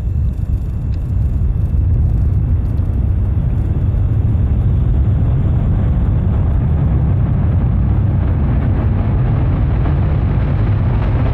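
Falcon 9 rocket's nine Merlin first-stage engines during ascent, heard as a deep, steady rumble. It grows a little louder about two seconds in and gets brighter toward the end.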